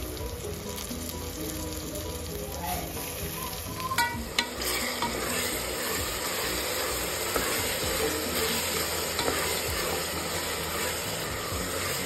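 Chopped tomatoes, onions and green chillies sizzling in an aluminium pressure cooker while a spatula stirs them, scraping and knocking against the pot. Sharp knocks come about four seconds in, and the sizzle and scraping are louder after them.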